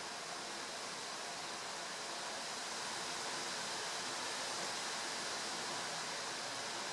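Steady hiss of background noise that rises slightly in level about halfway through, with no distinct clicks or knocks heard over it.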